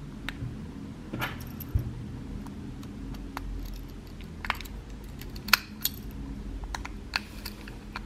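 Small precision screwdriver clicking and ticking against the plastic earcup and its tiny screws as a Logitech H800 headset is screwed back together: scattered sharp clicks, irregularly spaced.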